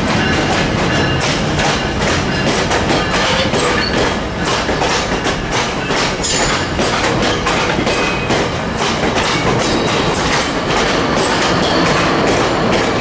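West Coast Express bilevel commuter coaches rolling past close by: a steady, loud rolling rumble with a rapid, irregular clatter of wheel clicks as the cars pass over the track.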